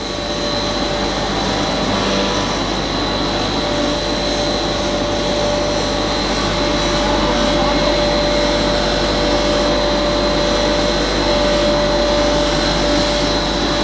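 Puffed corn snack extrusion line running: a steady machine whir with a constant high-pitched whine through it, from the extruder and the motor-driven conveyor working together.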